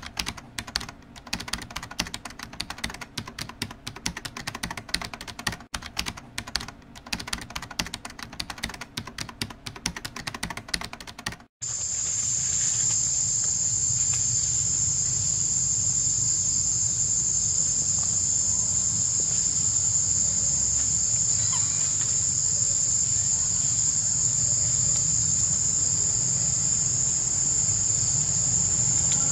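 Rapid, irregular clicking for about the first eleven seconds. It cuts off suddenly, and a steady, high-pitched drone of insects runs on from there to the end, with a low rumble underneath.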